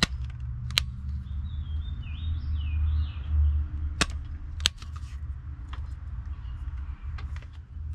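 Wire stripper clamping and stripping insulation off a thin wire: sharp snapping clicks, two close together at the start and two more about four seconds in, with a few fainter ticks later. Birds chirp briefly in the background around two to three seconds in, over a low steady rumble.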